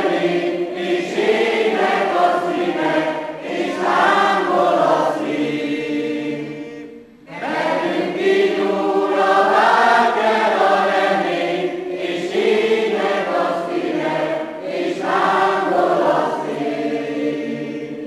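A mixed group of men and women singing together. The phrases run continuously, with one short break about seven seconds in.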